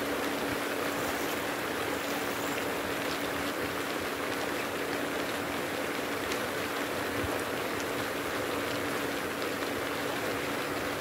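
Pond fountain aerator splashing water steadily, with a steady hum underneath.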